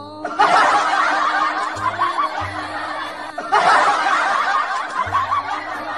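Canned laughter: a crowd chuckling and snickering, played as two similar stretches of about three seconds each, over background music.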